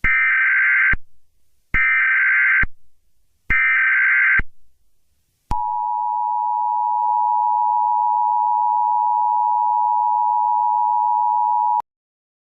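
Emergency Alert System SAME header: three short bursts of screeching digital data tones that open an alert. They are followed by the EAS two-tone attention signal, held steady for about six seconds before it cuts off.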